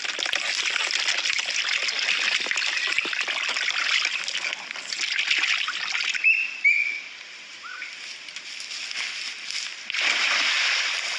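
Water splashing and sloshing, stopping about six seconds in and starting again near the end. A few short high chirps come in the quieter stretch between.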